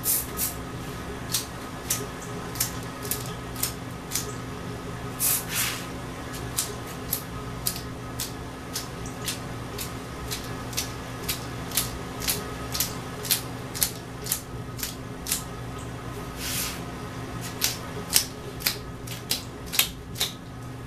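Two short hisses from an aerosol spray-paint can, about five seconds in and again past the middle, over sharp clicks that come one or two a second.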